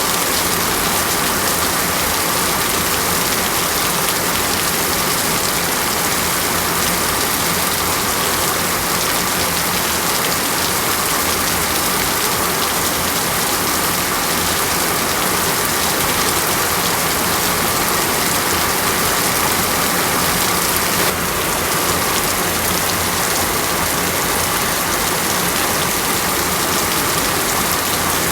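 Heavy rain falling steadily: a dense, even hiss of raindrops with no thunder.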